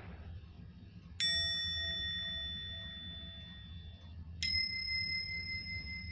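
Bell-like ding sound effect played twice, about three seconds apart, each a sudden high strike that rings on and fades slowly.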